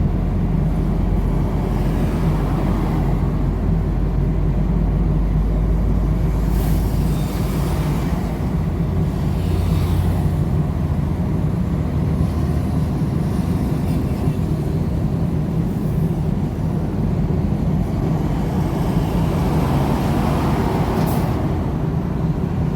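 Semi-truck engine running while driving, with steady road noise; the deep low engine drone drops away about halfway through. A few brief swishes pass.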